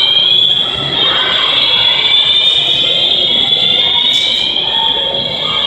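Shopping mall fire alarm system sounding: loud, high siren-like tones that glide slowly upward in pitch.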